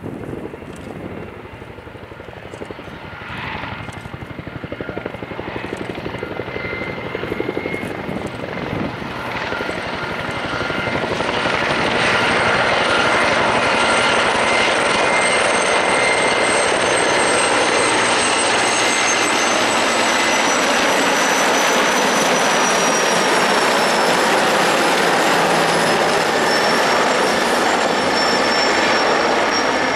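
A formation of military helicopters, among them a Mil Mi-24 and a Mil Mi-17, flying low overhead: the rotor and turbine noise grows louder over the first twelve seconds as they approach, then stays loud and steady. High turbine whines fall slowly in pitch as the helicopters pass.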